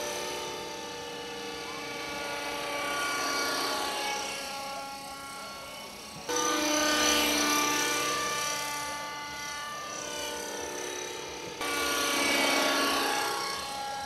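Radio-controlled model helicopter in flight: the high, steady whine of its motor and rotor, with the pitch sweeping a little up and down as it moves. It jumps louder suddenly twice, about six and twelve seconds in.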